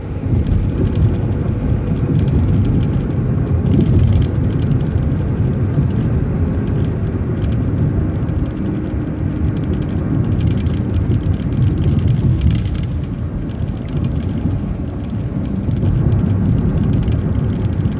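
City bus in motion heard from on board: steady engine and road rumble with light rattles and clicks from the body, and a faint steady hum rising into it about halfway through.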